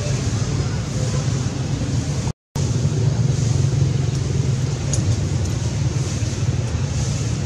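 Steady low outdoor rumble, with a brief cut to silence a little over two seconds in.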